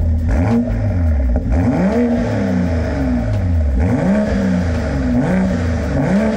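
2020 Toyota GR Supra's engine blipped several times at standstill through its HKS exhaust, each rev rising and falling back to idle. The bimodal exhaust is in its quieter normal mode, which gets rid of the crackle.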